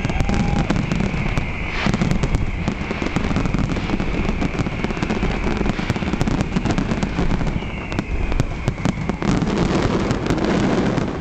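Fireworks display in a dense barrage: many shells bursting in quick succession, continuous crackling and popping over a low rumble. A high steady whistle runs through the first two seconds and returns from about seven and a half to nine seconds in.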